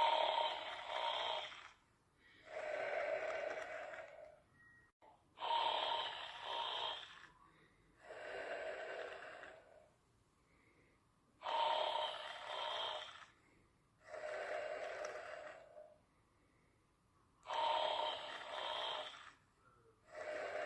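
A sleeper snoring in slow, even breaths about every six seconds: each breath is a louder, rattling two-part snore on the inhale, followed by a softer exhale that fades away.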